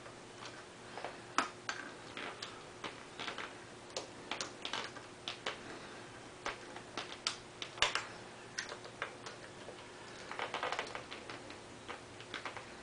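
Hand socket ratchet clicking in short, irregular runs as the thermostat housing bolts are tightened down, with a quicker run of clicks about ten seconds in.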